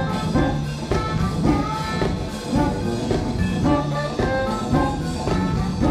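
Live funk band playing, with a saxophone carrying a melody line in short phrases over bass and drums.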